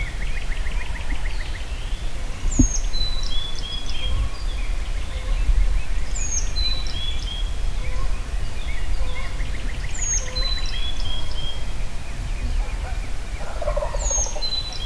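Wild turkey gobbling twice, each a quick rattle about a second and a half long: once at the start and again about seven and a half seconds in. A songbird repeats a short high whistled song about every four seconds, over a steady low rumble.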